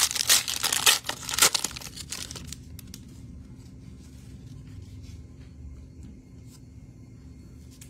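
A trading-card pack wrapper is torn open and crinkled by hand, loud and crackly for about the first two and a half seconds. Then it falls to quiet room hum with a few light ticks of cards being handled.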